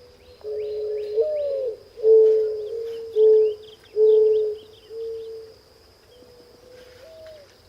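Mourning dove song: a long rising-then-falling coo followed by several shorter, steady coos, with faint high chirps of small birds above.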